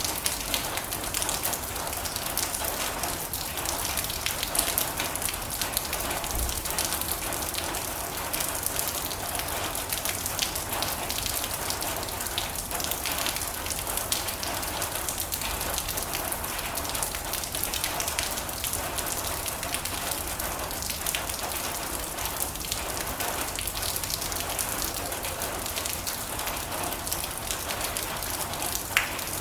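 Steady rain drumming on a metal roof, a dense patter of many drops hitting the sheet metal, with a sharper single drop tick near the end.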